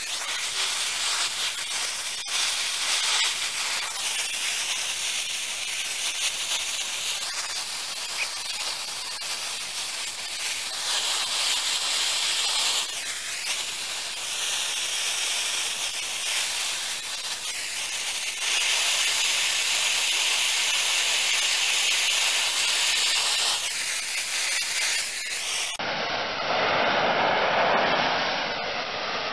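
Oxy-acetylene torch flame hissing steadily as it melts rock on the end of a steel pipe. Near the end the hiss turns duller and lower.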